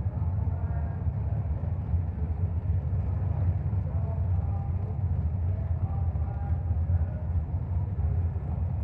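Steady low rumble of idling engines with no revving, and faint voices in the background.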